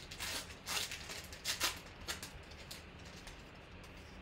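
Foil wrapper of a football trading-card pack crinkling as it is torn open and the cards are pulled out: several short, sharp crinkles in the first three seconds, then softer rustling.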